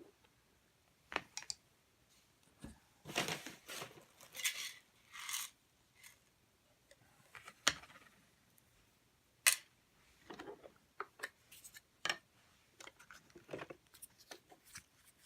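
Scattered clicks, taps and scraping from hands working on a robot vacuum's plastic housing and small parts, with a few louder clicks and short rustling scrapes between quiet gaps.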